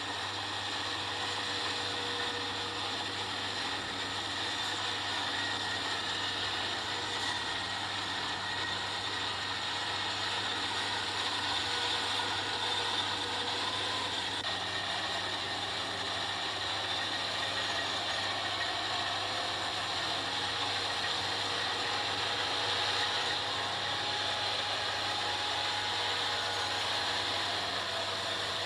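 Kubota combine harvester running steadily at work: a constant engine hum under a dense mechanical rattle of its moving parts.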